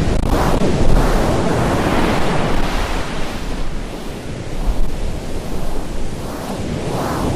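Loud rushing noise that swells and eases every second or two, like surf or wind on a microphone, with no tune or voice in it.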